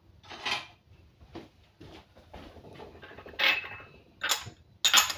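Kitchenware being handled on a stone countertop: a ceramic plate and small glass bowls set down and moved, giving a string of short knocks and clinks. One clink rings briefly about three and a half seconds in, and the loudest knocks come near the end.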